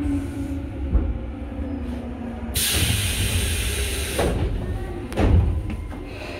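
Tobu 8000 series electric train with a low rumble. About two and a half seconds in comes a loud hiss of released compressed air lasting about a second and a half, from the train's pneumatic doors or brakes. A heavy thud follows about a second later.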